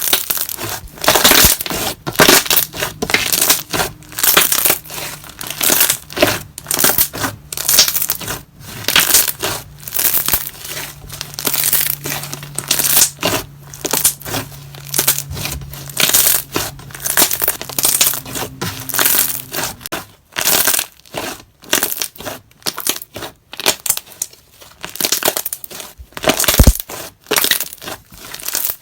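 Thick, glossy slime being squeezed, poked and stretched by hand, making a quick, irregular run of wet, sticky clicks and squishes.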